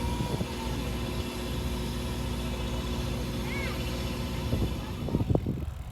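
Engine running with a steady low drone and constant hum aboard a small car ferry, with a few knocks about five seconds in; the sound drops away suddenly near the end.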